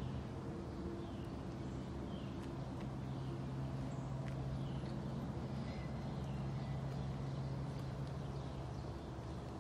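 A steady low hum that fades away near the end, with a bird's short falling chirps repeating every second or so.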